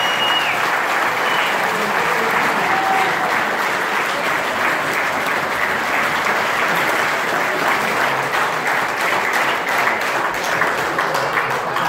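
Wedding guests applauding steadily, with single claps standing out more separately near the end.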